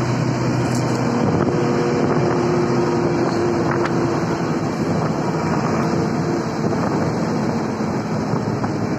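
Steady engine hum and road noise of a moving vehicle, heard from inside with the window open, with wind on the microphone.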